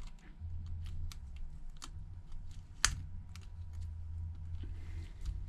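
Small precision tools clicking and tapping against iPhone 8 parts as the home button bracket is fitted, with one sharper click about three seconds in. A steady low hum runs underneath.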